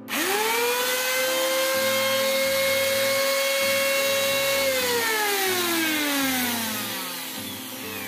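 DW801-type angle grinder's motor, its new armature bearings fitted and gear head off, switched on for a test run. It spins up at once to a steady high whine and runs smoothly without vibration, a sign the bearing replacement has cured the noise. About four and a half seconds in it is switched off and winds down, the whine sliding steadily lower in pitch.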